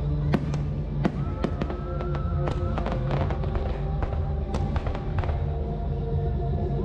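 An irregular series of sharp cracks and pops, with a dense crackling cluster about three seconds in, over steady background music.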